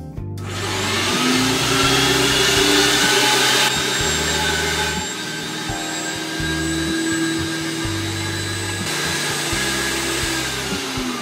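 Electric meat grinder's motor starting up with a rising whine, running steadily while herring fillets are pushed through and ground, then winding down with a falling whine near the end.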